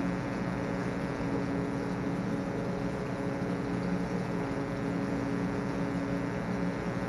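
A steady machine hum with several fixed pitches under a constant hiss, unchanging throughout.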